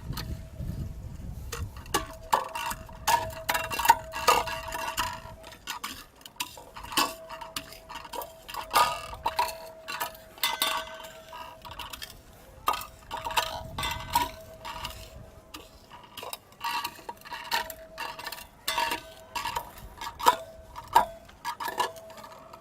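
Roasted, blackened garlic cloves being pounded and ground into powder: irregular knocks and clinks of a metal utensil against a metal vessel, several a second, with a ringing tone from the vessel that comes and goes.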